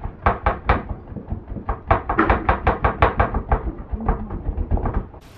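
Wide bristle paintbrush tapping against a stretched canvas: a quick run of dull taps, about four to seven a second, that speeds up around the middle and stops shortly before the end. The taps come from dabbing paint on to form background trees.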